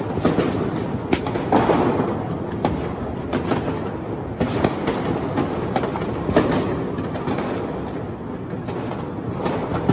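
Firecrackers and fireworks going off all around a neighbourhood. A continuous din of distant bangs runs throughout, with sharper cracks breaking through at irregular moments, several times a second at the busiest points.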